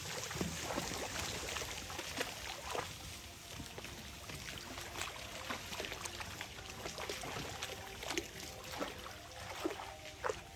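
Water splashing and trickling as several crocodiles clamber out of a pool onto a concrete ledge, with scattered short knocks and scrapes throughout.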